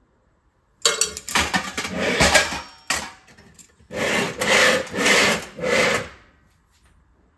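Wire plate stand loaded with steel plates scraping as it is slid along the base of a kitchen drawer: one long drag, then three shorter pushes.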